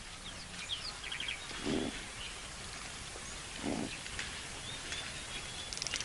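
Dawn chorus of wild birds: scattered high chirps and quick trills, with two short, lower calls about two seconds apart.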